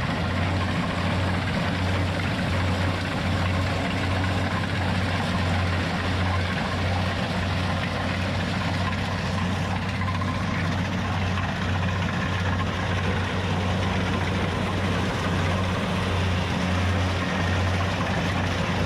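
Rice combine harvester running steadily in the field, its engine giving a constant low hum over a broad, even mechanical noise.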